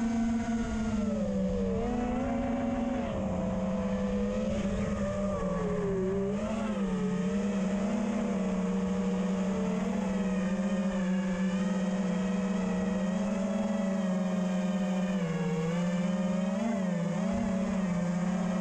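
Eachine Wizard X220 FPV quadcopter's brushless motors whining: a steady buzzing tone whose pitch wavers up and down slightly with the throttle.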